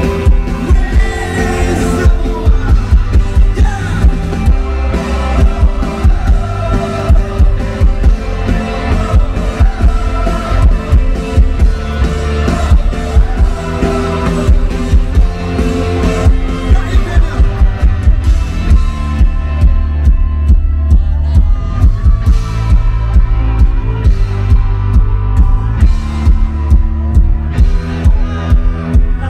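Live rock band playing through a PA: electric guitars, keyboards, bass and drums with a steady, heavy beat.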